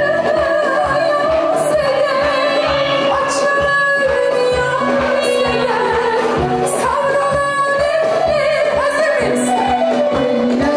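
Woman singing a wavering melody into a microphone, backed by a live Balkan folk band of clarinet, violin and hand drums keeping a steady beat.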